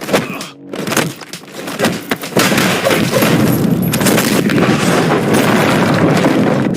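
Fight sound effects: a few heavy booming impacts in the first two seconds, then a loud, continuous rush of noise from about two and a half seconds on.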